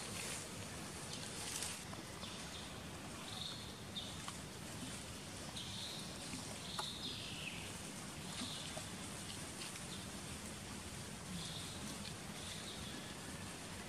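Outdoor forest ambience: a steady hiss of background noise with short high chirps every second or two, one of them sliding downward about seven seconds in.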